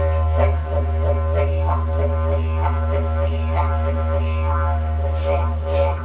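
Handmade wooden didgeridoo playing a continuous low drone, with its upper overtones swelling in a rhythmic pattern a few times a second.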